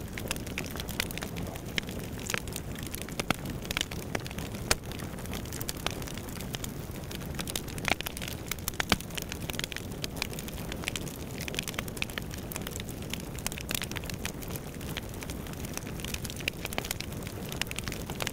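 A steady crackling hiss, dense with small sharp pops and snaps scattered irregularly throughout.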